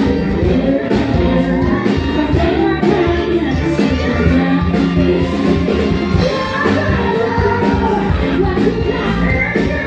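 Live band music played loud through a club's PA, with a woman singing over it.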